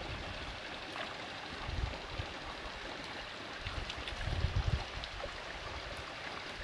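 Shallow rocky stream trickling steadily over stones, with a couple of short low rumbles, around two and four seconds in.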